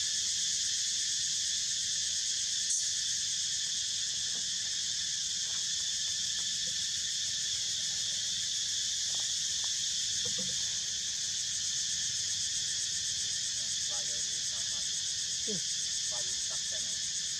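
Steady, high-pitched insect chorus droning without a break, with a few faint brief sounds in the second half.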